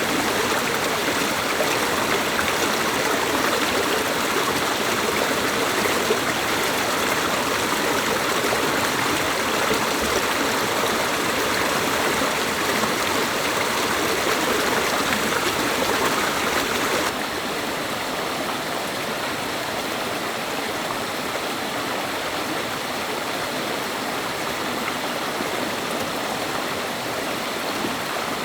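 Stream water rushing steadily, with no tones or single hits; it drops a little in loudness all at once about two-thirds of the way through.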